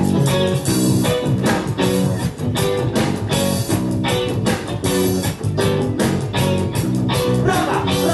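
Live reggae band playing an instrumental passage: electric guitar, bass guitar, drum kit and keyboard, with the guitar chops and drum hits keeping a steady beat over the bass line.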